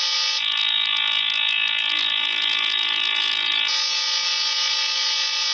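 Emergency alert (EAS-style) alarm tone: a loud, continuous, harsh buzzing that alternates between two slightly different tones about every three seconds.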